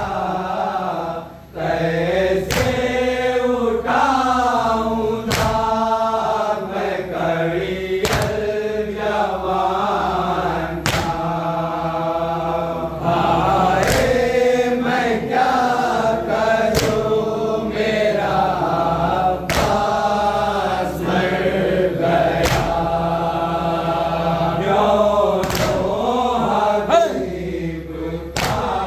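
A group of men chanting a noha, a mourning lament for Abbas, in unison, with sharp chest-beating (matam) strokes roughly every second and a half keeping time.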